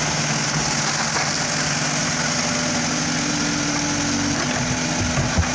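Diesel engine of a JCB 3DX backhoe loader running steadily under load as its boom lifts a septic tank; the engine note steps up to a higher pitch about two seconds in.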